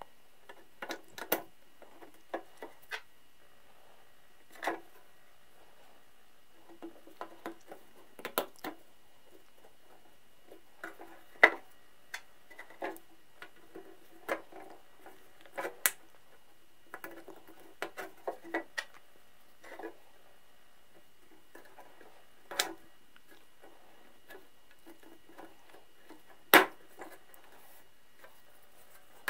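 Brass saw screws and split nuts being fitted into the wooden handle of an 1880s Richardson Bros. rip saw: irregular small clicks, taps and light scraping of metal against wood and the steel blade.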